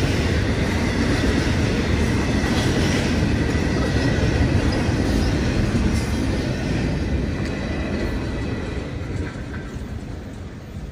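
Double-stack intermodal container cars rolling past on jointed track: a steady rumble and clatter of steel wheels on rail, with a faint thin wheel squeal in the first few seconds. The sound fades over the last few seconds.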